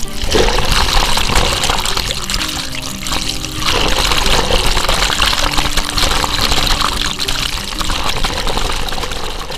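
Loud, steady rushing of water, starting and stopping abruptly, with faint background music underneath.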